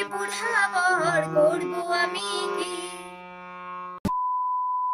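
A woman sings a Bengali song with a wavering pitch over a harmonium's steady sustained chords. About four seconds in it cuts off with a click and is replaced by a steady single-pitch beep, like a TV test tone.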